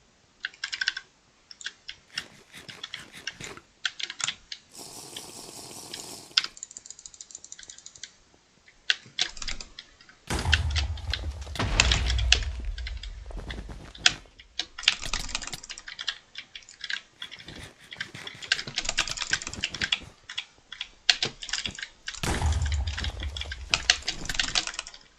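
Computer keyboard being typed on in fast, irregular bursts of key clatter with short pauses. The heaviest bursts come in the middle and near the end, with deep thuds under the key clicks. There is a brief hiss about five seconds in.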